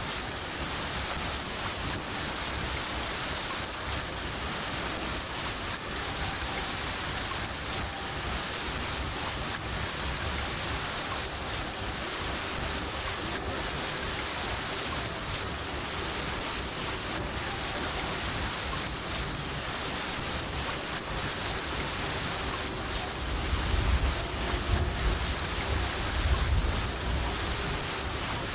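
Crickets chirping steadily, about two and a half chirps a second, over the hiss of steady rain. A low rumble of thunder comes in near the end.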